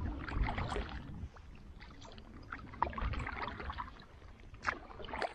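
Canoe paddling through choppy water: paddle strokes and water splashing against the hull, with wind buffeting the microphone.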